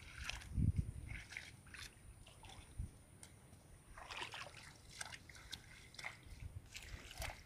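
A cow's hooves sloshing and squelching through shallow water and mud as it wades and grazes, in irregular splashes, with a dull thump about a second in.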